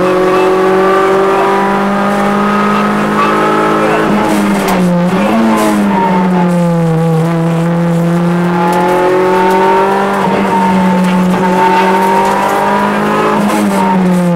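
Rally car engine held at high revs under hard acceleration, heard from inside the cabin. Its pitch dips briefly and climbs again a few times as the car is driven flat out along the stage.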